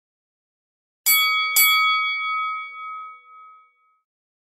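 Notification-bell sound effect from a subscribe-button animation. Two quick bell dings about half a second apart come about a second in, then ring out and fade over about two seconds.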